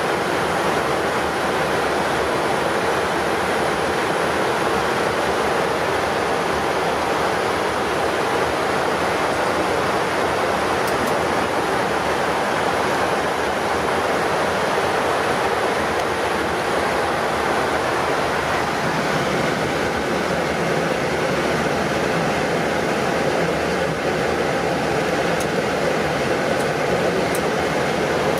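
Steady rushing noise inside a Boeing 777-300ER cockpit climbing after takeoff: airflow and air-conditioning hiss over the engines' drone, unchanging in level.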